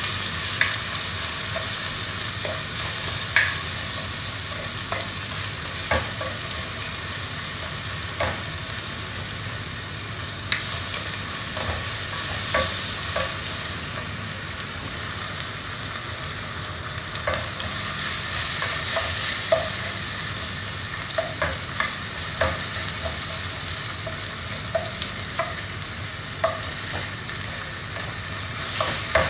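Sliced onion, ginger, garlic and tomato wedges frying in oil in a pot: a steady sizzle, with the spoon clicking and scraping against the pot now and then as they are stirred.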